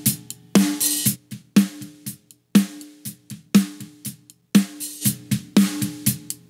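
Recorded snare drum track playing back, compressed with a slow attack and fast release for punch through a Slate Digital FG-116 compressor. Strong hits come about once a second with quieter hits between, and each one rings with a short pitched tone.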